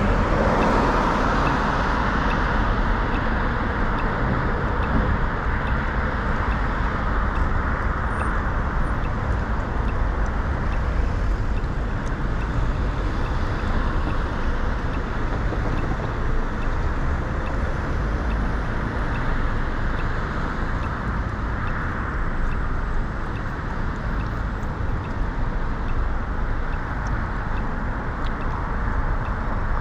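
City road traffic at a busy intersection, with cars passing across in front. The low rumble sounds like wind on the microphone. Traffic is loudest in the first couple of seconds, and a faint, evenly spaced ticking runs underneath.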